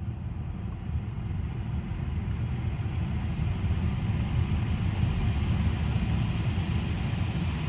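Low, steady rumble of a Tesla Model Y rolling slowly under Smart Summon, heard from inside the cabin. There is no engine note, and it grows gradually louder.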